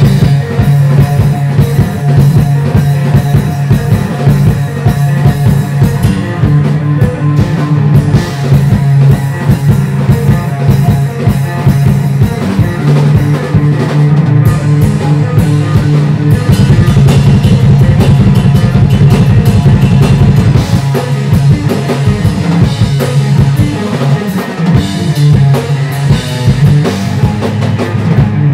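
A live math rock band playing loud, with a drum kit and electric guitar.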